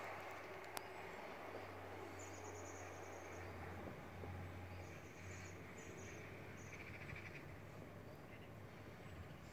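Faint outdoor ambience: a steady low hum, with a few short, rapid, high-pitched chirping trills in the middle stretch and one sharp click about a second in.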